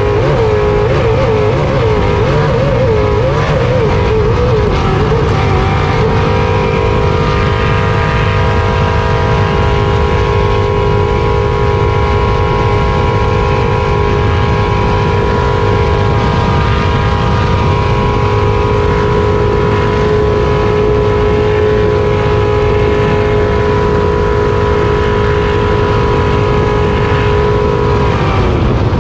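Race jet boat's engine running hard at high speed, heard onboard. Its pitch wavers for the first few seconds, then holds steady, and drops slightly near the end.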